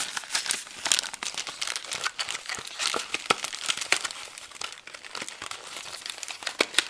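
Packaging being handled and crumpled, crinkling continuously with many small sharp crackles.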